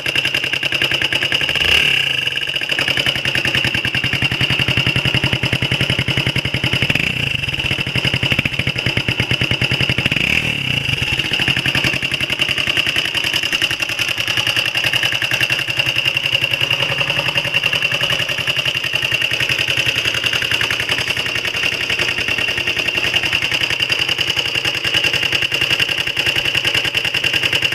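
Honda XL125R's single-cylinder four-stroke engine idling steadily with a rapid even pulsing, briefly rising in pitch a few times in the first half. The abnormal noise is an exhaust leak where the exhaust pipe meets the engine: the collar there is half gone and there is no gasket.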